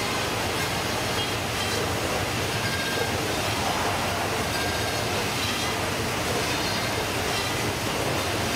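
A Baader automatic fish-processing machine running steadily as whole fish are fed into it. Its mechanism and conveyor make a continuous, even mechanical noise.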